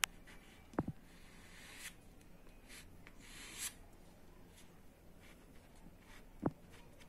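A paint-loaded plastic card scraped across paper in two strokes of about a second each, each growing louder toward its end, with a few sharp clicks as the card is pressed down.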